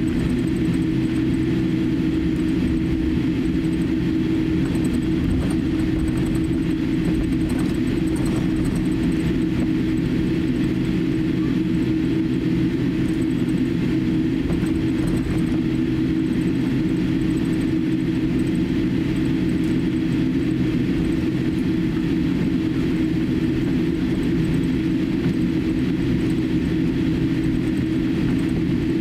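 Cabin noise of a Boeing 787-8 taxiing, heard inside the cabin: its GEnx-1B engines at taxi power give a steady low hum with a couple of held tones over a constant airy hiss.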